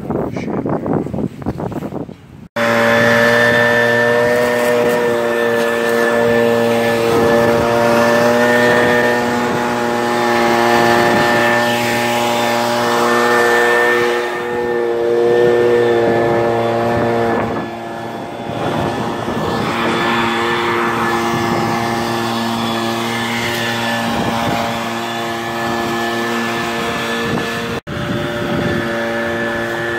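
A truck engine running steadily at a constant speed, loud and even. It starts abruptly about two and a half seconds in and drops out for an instant near the end.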